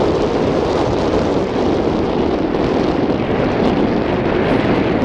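Wind buffeting the camcorder's microphone: a steady, rushing noise.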